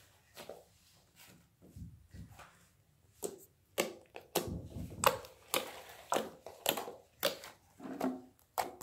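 A hand pressing and patting a lump of white slime, making a run of short clicks about twice a second from about three seconds in.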